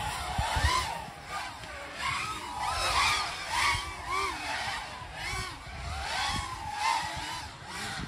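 Several FPV racing drones' motors whining, their pitch sweeping rapidly up and down and overlapping as the pilots work the throttle.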